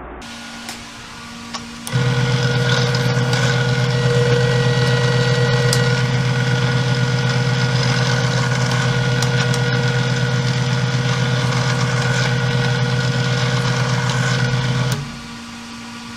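Porter-Cable air compressor's electric motor and pump switching on about two seconds in and running at a steady, unchanging pitch for about thirteen seconds, then shutting off: the tank refilling to pressure.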